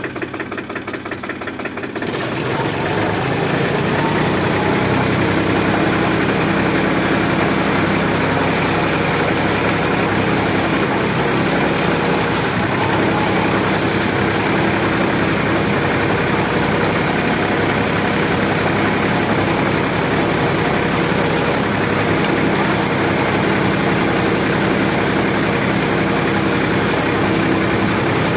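Tractor diesel engine powering a potato harvester. It idles with an even beat, then about two seconds in it picks up to a louder, steady run.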